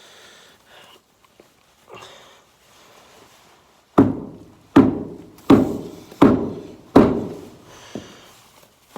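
Five heavy blows in a row, about one every three-quarters of a second, each a sharp thunk with a short ring, then one lighter knock. The blows are knocking frozen manure and silage off a skid steer's wheel hub.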